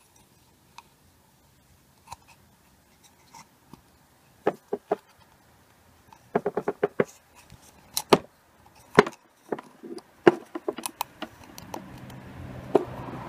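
Scattered clicks and taps of a small screwdriver and the oil filter housing cap being handled while old O-rings are pried off the cap, with a quick run of clicks about six seconds in. A low steady hum comes up near the end.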